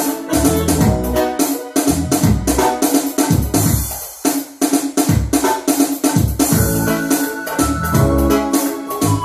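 Yamaha electronic keyboard played with both hands: a busy melody over low chords, notes following one another quickly, with a short drop in loudness about four seconds in.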